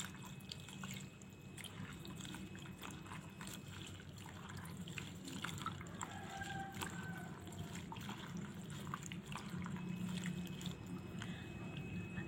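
Faint sloshing and dripping of water as a handful of betel leaves is squeezed and kneaded by hand in a bowl of water, with small wet ticks here and there.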